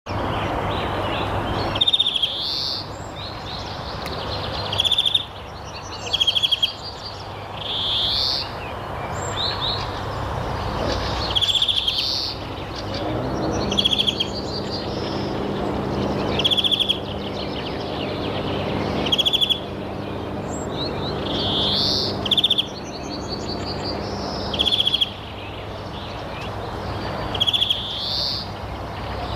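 A songbird calling over and over, a short phrase of quick rattling notes with a swooping note every two to three seconds, over a steady background rush and a low hum.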